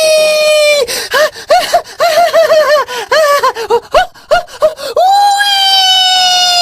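A high-pitched voice screaming one long held note, which breaks off about a second in into a quick run of short rising-and-falling cries, about four a second; near the five-second mark another long scream starts and sags slowly in pitch.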